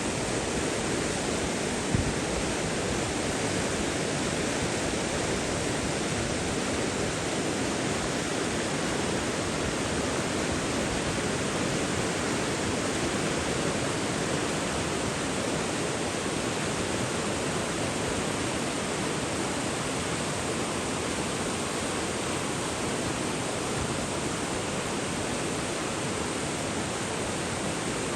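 Water rushing steadily, an even unbroken flow like a stream or small waterfall. A single brief knock sounds about two seconds in.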